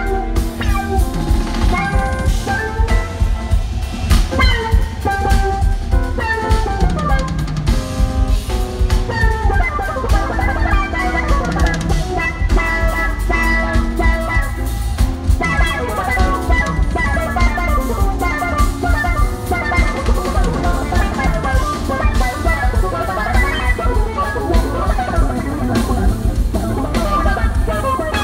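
Live band playing an instrumental passage on electric bass, keyboards and drum kit, with quick runs of notes over a steady groove.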